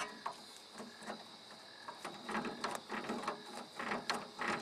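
Handmade control handle being screwed by hand onto a spool valve lever: a run of small irregular clicks and scrapes, growing busier about halfway through, until the handle is fully on.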